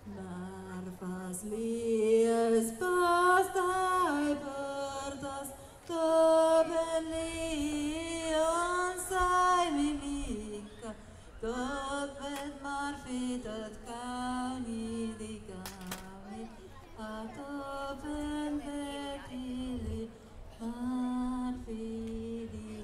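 A woman singing a Skolt Sámi leu'dd as a single voice, the melody gliding and ornamented in phrases with short breaks between them.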